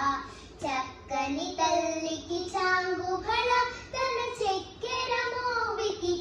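Two young girls singing a Telugu song together without accompaniment, in held, gliding phrases with short breaths between them.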